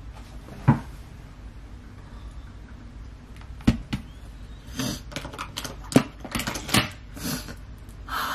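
Handling of small cosmetic containers and tools: a scattering of sharp clicks and taps, most of them in the second half.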